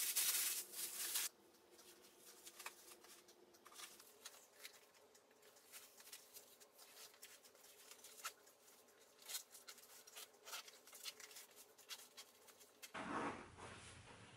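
Clothes and a fabric packing cube being handled: a louder rustle of fabric at first, then faint scattered rustles and light taps as the clothes are pressed down, and another rustle near the end.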